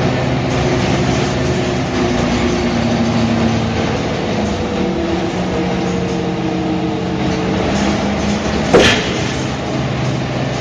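Mercedes-Benz O345 Türk city bus running under way, its engine note shifting up and down in pitch. A single sharp knock about nine seconds in.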